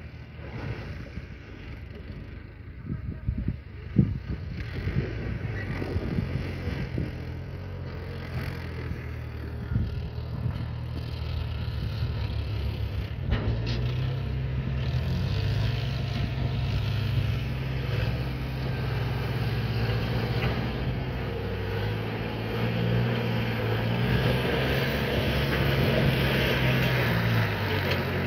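Diesel tractor engines running and working hard under load, their steady low note growing louder through the second half. A few sharp knocks sound early on, the loudest about four seconds in.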